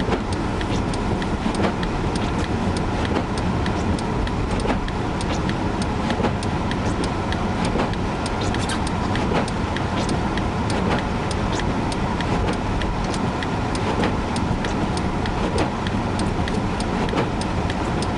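Steady wind and road noise inside a car creeping along at about 10 mph through a blizzard, with many scattered sharp ticks throughout.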